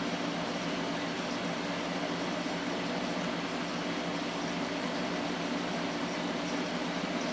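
Steady fan hum with a constant low drone, even and unchanging throughout.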